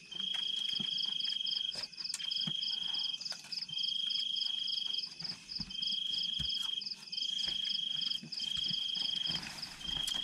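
Night chorus of calling insects. One caller repeats trills of about a second each with short gaps between, over a steady, higher pulsing trill from others, and a few faint clicks and knocks come up now and then.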